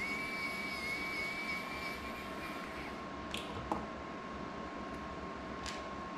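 Steady room hiss with a faint constant whine, a thin high electronic tone for about the first three seconds, and a few light clicks from small drone parts and tools being handled on the workbench.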